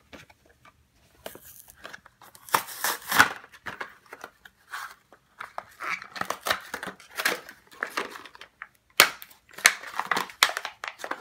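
Cardboard-and-plastic toy blister pack being torn open and crinkled by hand in irregular spells of tearing and crackling, with a couple of sharp snaps about nine seconds in.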